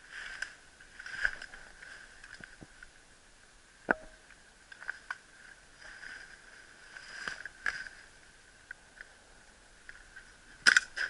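Soft rustling and a few sharp snaps of brush and gear as a player crawls, then near the end a quick cluster of loud sharp cracks from an airsoft gun firing.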